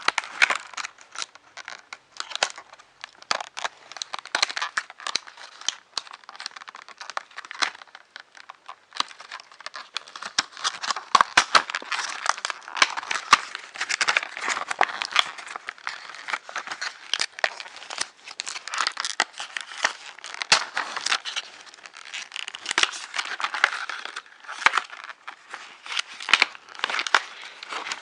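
Packaging crinkling, crackling and tearing as it is handled and cut open, a dense run of sharp clicks and rustles throughout.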